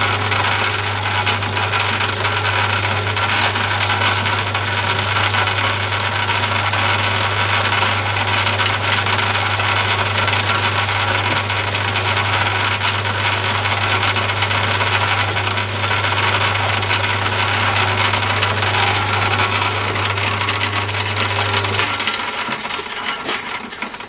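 Myford ML7 lathe running at low speed, turning a paint tin loaded with nuts, bolts and bar ends that clank and rattle continuously against the tin as they churn the Hammerite paint; the clanking is the sign that the paint is mixed. The motor hum cuts off near the end and the rattling dies away as the lathe stops.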